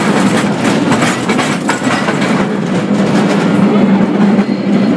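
San Francisco cable car riding along its rails: a steady low drone with frequent rattles and clicks from the moving car.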